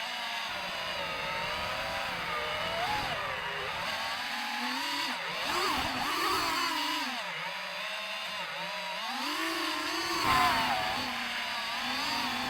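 DJI FPV drone's motors and propellers whining, the pitch rising and falling again and again as the throttle changes in acro-mode flight, with a brief louder surge about ten seconds in.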